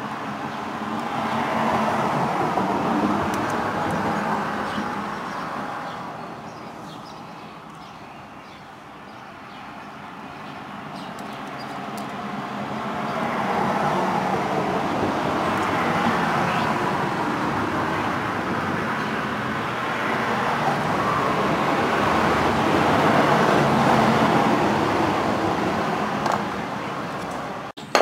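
Road traffic going by: an even rush of tyre and engine noise that swells, fades, and swells again for a longer stretch in the second half.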